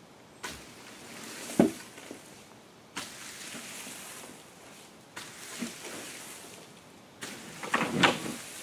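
Cut branches and brush being pulled out of a trailer box with a long-handled tool: four rustling, scraping pulls, each a second or two long. There is a sharp knock about one and a half seconds in and a cluster of knocks near the end.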